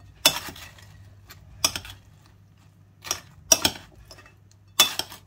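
A large spoon knocking and scraping against a ceramic salad bowl while mixing a salad, about five separate clinks spread out over a few seconds.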